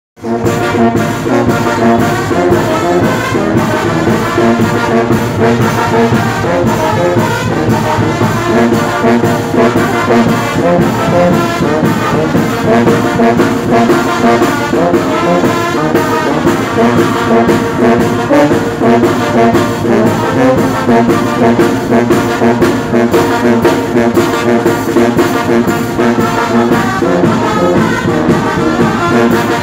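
Mexican banda de viento playing a huapango: trombones and other brass over a steady beat, loud and close, heard from among the players.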